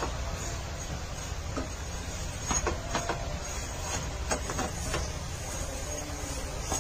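Steel ladle scraping and knocking against a nonstick pan as dry lachha vermicelli is stirred and roasted, a handful of irregular clinks over a steady low rumble.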